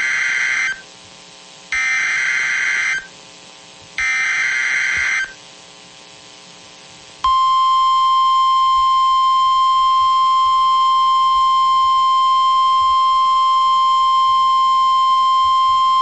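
NOAA Weather Radio emergency alert: three screeching bursts of SAME digital header data, each about a second long with a short gap between, then the steady 1050 Hz warning alarm tone starting about seven seconds in and holding loud and unbroken.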